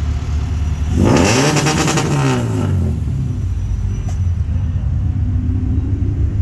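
Car engine revved once about a second in, its pitch climbing and falling back over about two seconds with a crackle, then settling to a low idle rumble.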